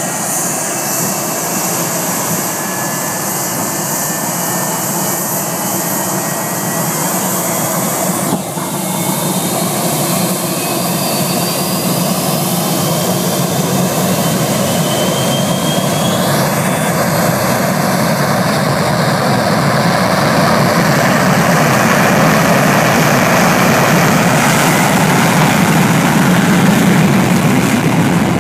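Twin rear-mounted jet engines of an airliner running up to takeoff power, blasting the beach behind it: a steady jet roar with faint rising whines, growing gradually louder toward the end.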